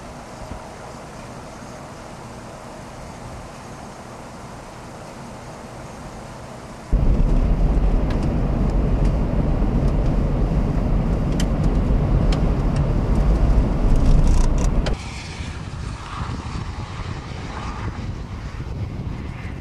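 Low rumbling wind noise on the microphone, jumping much louder about seven seconds in with a few clicks, then dropping back about fifteen seconds in.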